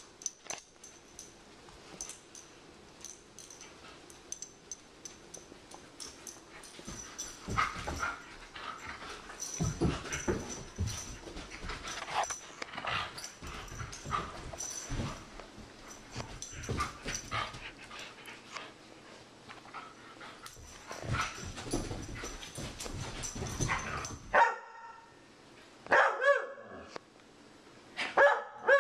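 A borzoi and a Doberman puppy playing rough on carpet: scuffling and dull thumps from their paws and bodies, then three short barks near the end.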